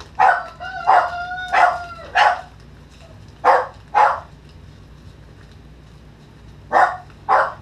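Dogs barking, about eight short barks that mostly come in pairs, with a held whining note mixed in during the first two seconds.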